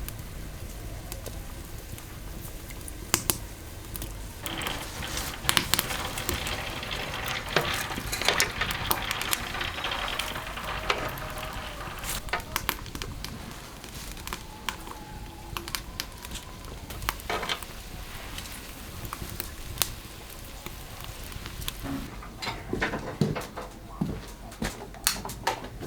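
Cooking sounds: a spell of sizzling lasting several seconds, with scattered clicks and knocks of utensils and pots, the knocks coming more often near the end.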